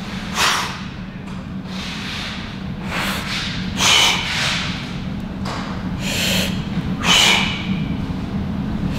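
A man breathing hard with effort during dumbbell bench press reps: about six sharp, noisy puffs of breath, one every one to three seconds, over a steady low hum.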